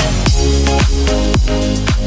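Upbeat electronic outro music with a steady beat, about two beats a second, each beat a low tone gliding downward.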